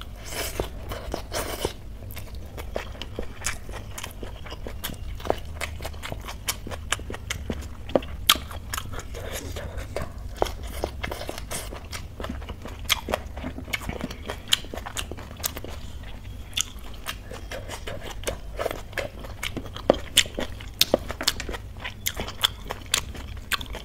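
A person chewing mouthfuls of rice and curry eaten by hand, with many short wet mouth clicks and smacks and some crunchy bites.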